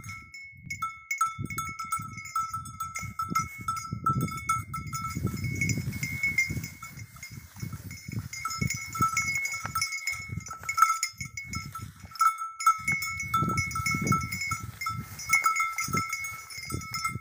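Two bulls sparring with horns locked, shoving head to head: low irregular huffs and scuffling throughout, with one sharp knock about eleven seconds in. A steady high two-note ringing runs behind.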